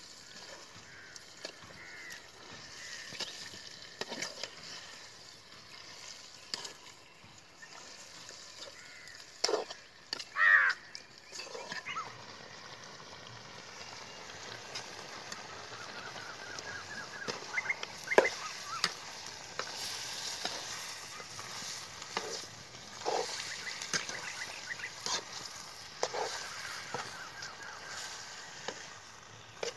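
Chicken pieces being stirred in a black iron kadai over a wood fire: a metal slotted spoon knocks and scrapes against the pan at irregular intervals over a low sizzle. A short animal call sounds once about ten seconds in.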